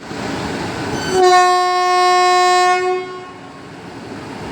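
Train horn sounding one steady blast of about two seconds, starting a little over a second in, as the express departs, over a steady background rumble.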